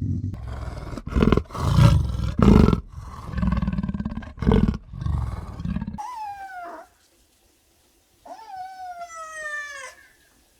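A tiger roaring and growling in a series of loud, rough bursts for about six seconds. After an abrupt cut, a cat gives two long meows, each falling in pitch.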